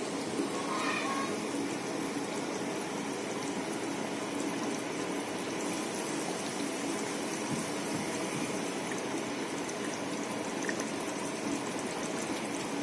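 Steady, even watery hiss with faint crackles throughout, and a brief higher tone about a second in.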